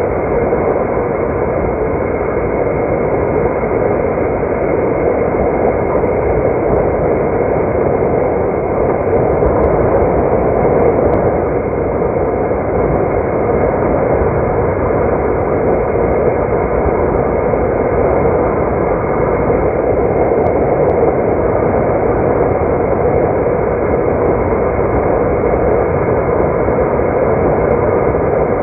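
Steady road and engine noise of a car being driven, an even rushing noise that holds at one level throughout, with a faint steady hum.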